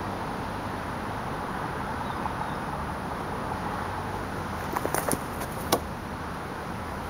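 A few quick footfalls of a run-up about five seconds in, then one sharp slap as both hands plant on the picnic table top for a parkour kong vault, over a steady outdoor background hiss.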